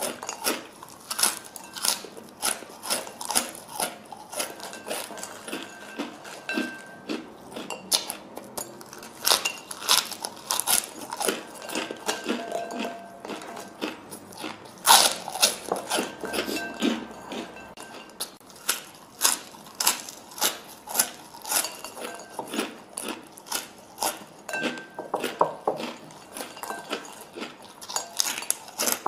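A person biting and chewing crispy fried food close to the microphone: a continuous run of sharp crunches, a couple to a few a second.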